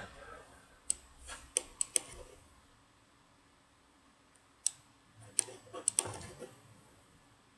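Computer mouse button clicking: a few sharp clicks about a second in, then another few about five seconds in.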